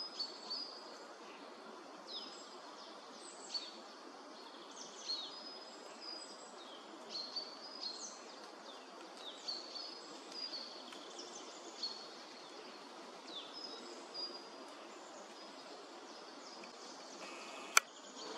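Small songbirds calling with many short, high chirps and down-slurred notes over a steady background hiss. One sharp click near the end.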